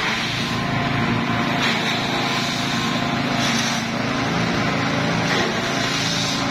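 Engine-driven forage grass chopper running steadily, its small engine humming while the blades cut grass stalks fed into it. The chopping noise swells briefly a few times as bundles go in.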